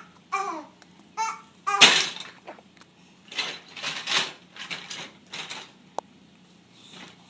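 Baby babbling in short pitched bursts, then a loud breathy squeal about two seconds in and several more breathy vocal noises. A single sharp click near the end.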